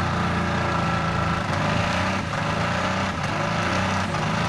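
Holden VN Commodore burnout car's engine held at steady high revs through a stationary burnout, with only slight changes in pitch.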